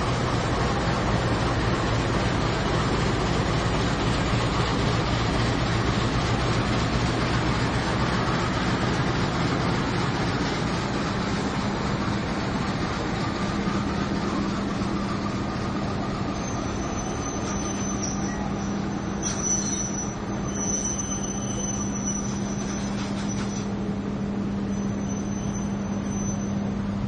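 A GE CC204 diesel-electric locomotive runs with a steady engine hum as it pulls slowly past, followed by its passenger coaches rolling by on the rails. A thin, high steady squeal from the running gear comes and goes in the second half.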